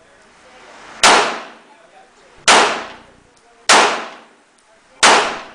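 9mm handgun fired four times in slow, deliberate succession, about one and a half seconds apart. Each shot is a sharp crack followed by an echo that fades over about half a second.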